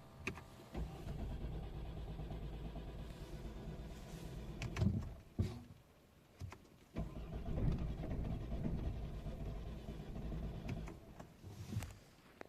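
Ford car engine started twice, each time running only about four seconds before stopping: the symptom of a broken throttle body actuator (fault code P02FA, intake air flow position sensor min/max stop performance).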